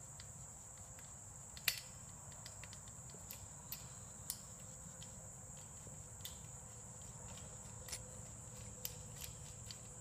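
Crickets trilling steadily at a high pitch, with scattered faint metallic clicks as a hex nut is turned by hand onto a steel bolt; the sharpest click comes a little under two seconds in.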